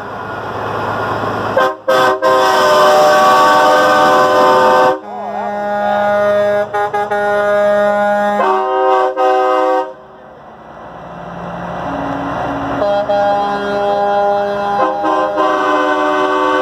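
Semi truck air horns sounding in long, held blasts, one truck after another, over diesel engines running as the trucks pass. The loudest blast comes about two seconds in; the horns drop away for a moment near the middle and come back strongly in the last few seconds.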